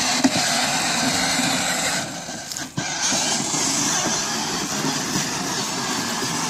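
Children's battery-powered ride-on motorcycle driving across grass: a steady mechanical whir and rolling noise that dips briefly about two and a half seconds in.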